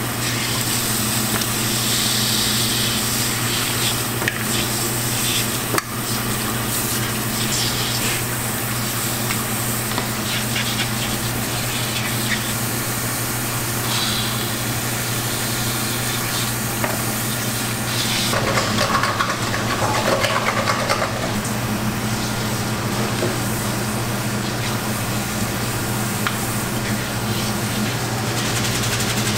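Shellfish sizzling on a grill over a coal-briquette fire: a steady crackling hiss, with a steady low hum underneath.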